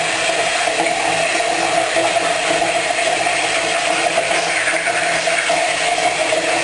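Electric toothbrush running with a steady mechanical buzz.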